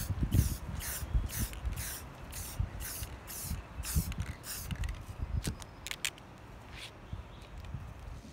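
Aerosol spray paint can spraying in short quick bursts, about two a second, as light coats go onto plastic whirligig blades. The bursts thin out about five seconds in, giving way to a few sharp clicks and one last short spray.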